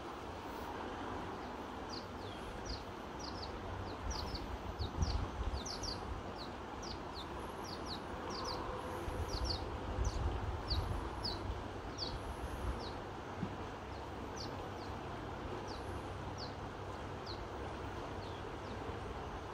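Rushing of a fast mountain river, with a small bird chirping short, high, falling notes at about two a second through most of it. Wind gusts on the microphone make low rumbles twice.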